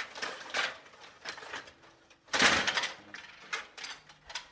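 Stiga Play Off table hockey game clattering: plastic rods, players and puck clicking and knocking against the plastic board in quick irregular bursts. The loudest clatter comes about halfway through and lasts about half a second.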